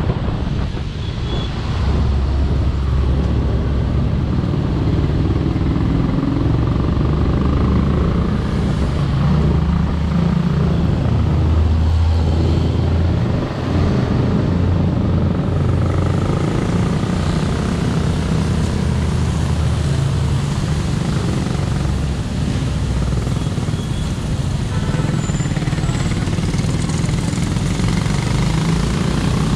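A motorcycle engine runs at low speed in slow traffic, under a continuous low rumble from the vehicles around it. The engine note drops briefly about halfway through.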